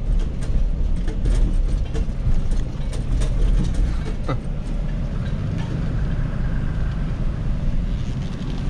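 Diesel truck driving on a road: a steady low engine drone and road noise, with knocks and rattles over the rough surface in the first half.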